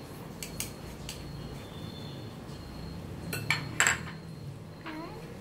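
Metal spoon clinking against a glass bowl as spice is spooned in: a few light clinks early, then two sharper, louder clinks about three and a half seconds in.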